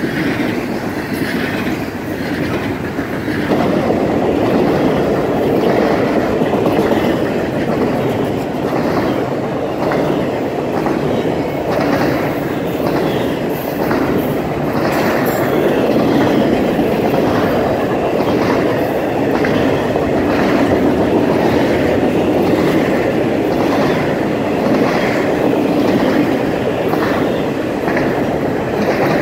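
Double-stack intermodal train rolling past: a steady rumble of the container well cars with a regular clickety-clack of the wheels over rail joints, about once a second. It gets louder about three and a half seconds in.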